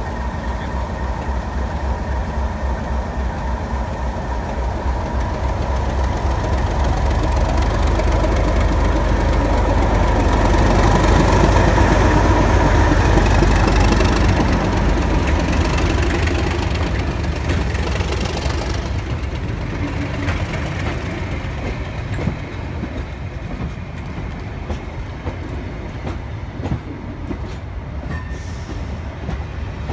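Class 37 diesel locomotive, its English Electric V12 engine running, passes slowly with a steady whistle and is loudest about twelve seconds in. Network Rail coaches then roll by, their wheels clicking over the rail joints.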